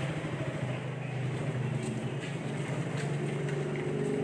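A steady, low droning hum of a running engine or motor.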